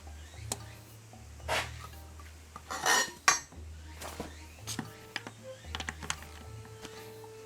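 Metal clinks and clanks of tools and parts being handled while a Honda Acty manual transmission is taken apart. The loudest clatter, with a brief metallic ring, comes about three seconds in, among scattered lighter clicks.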